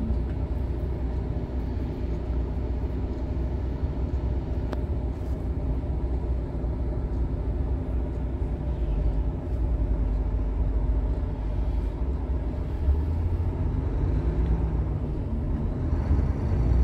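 Truck's diesel engine running in slow stop-and-go traffic, heard from inside the cab as a steady low rumble. It grows louder near the end as the truck pulls forward.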